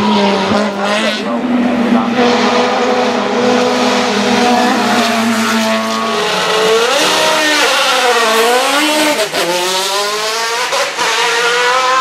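Racing car engines: for the first half an engine holds a fairly steady note, then from about halfway an engine revs hard up and down several times, rising and dropping in pitch through gear changes and corners.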